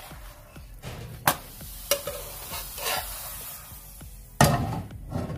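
Metal spatula scraping and knocking against a nonstick frying pan as a chapati is turned and lifted out, with a light sizzle of frying. There is a louder knock about four and a half seconds in.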